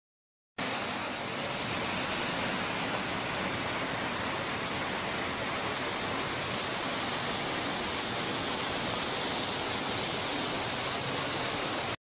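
Small river waterfall pouring over rocks into a pool: a steady rush of falling water that starts about half a second in.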